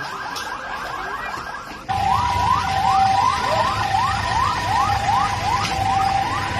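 Electronic alarm siren for the earthquake drill, sounding fast repeated rising sweeps. About two seconds in it switches abruptly to a louder, slower pattern of rising whoops, a little over two a second, over a steady tone, with a low rumble underneath.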